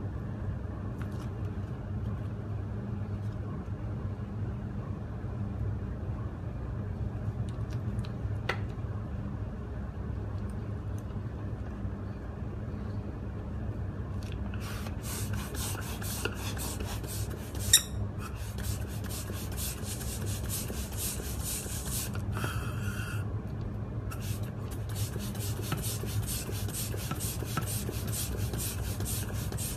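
A thin clear plastic bubble balloon being handled and pumped up with a manual hand balloon pump: crackly rubbing and crinkling of the plastic from about halfway on, with one sharp click soon after, over a steady low hum.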